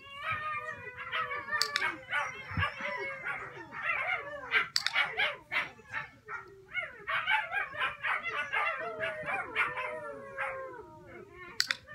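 Several dogs barking and howling together, overlapping calls going on throughout, with a few sharp clicks cutting through.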